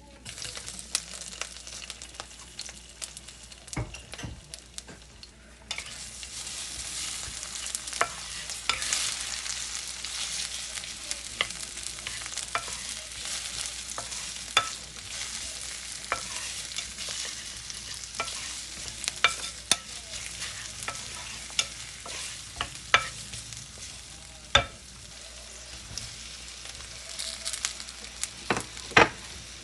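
Food sizzling in a hot oiled frying pan, with scattered sharp clicks and taps of a utensil against the pan. The sizzle gets louder about six seconds in.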